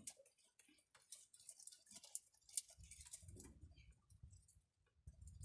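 Near silence with scattered faint clicks and ticks, and a faint low rumble in the middle.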